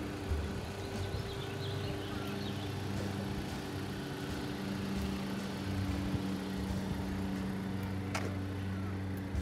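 A car engine idling: a steady low hum. Faint bird chirps about two seconds in, and a single sharp click near the end.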